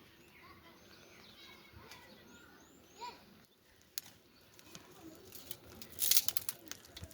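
Small birds chirping with short, repeated calls, followed near the end by a burst of loud rustling and sharp clicks.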